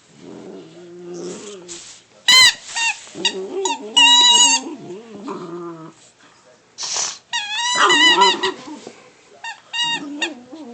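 A squeaky dog toy squeaking in repeated bursts as a boxer puppy bites it, some squeaks short and some long and wavering. Between the squeaks the puppy grumbles and growls.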